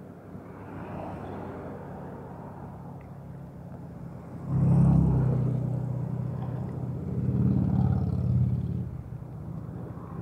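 A motor vehicle's engine running with a low, steady hum. It gets suddenly louder about halfway through, swells again, then eases off near the end.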